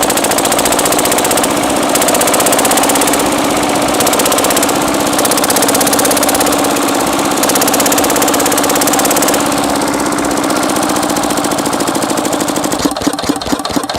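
Single-cylinder diesel engine of an electric generator running with its stock silencer fitted, a fast, even knocking beat. Near the end the beats spread out and turn uneven as the engine slows toward a stop.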